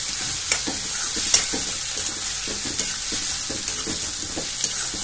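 Chopped onions, tomatoes and spices sizzling in hot oil in a wok while a steel spoon stirs them, scraping against the pan in repeated short strokes with an occasional clink.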